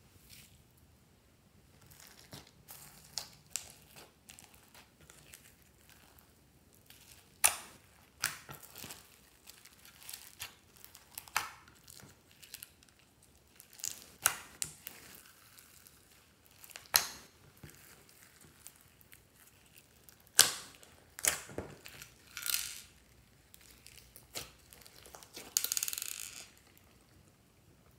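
Hands pressing and folding slime mixed with foam beads, pom-poms and glitter: irregular crackles, pops and squelches, with a longer squelch near the end as a dome of slime is pressed down.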